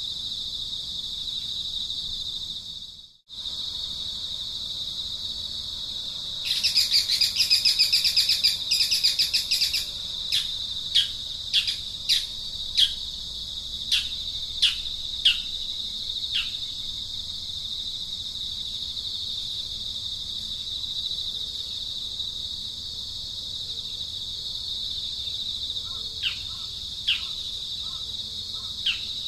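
Steady high insect drone with birds calling: a loud rapid pulsing chatter for a few seconds, then a series of sharp downward-sweeping chirps, which come back near the end. The sound cuts out for an instant about three seconds in.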